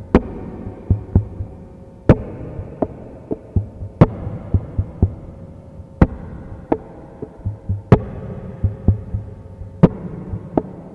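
A slow rhythmic backing track: a low pulsing hum under sharp clicks that fall about every two seconds, with softer ticks between them.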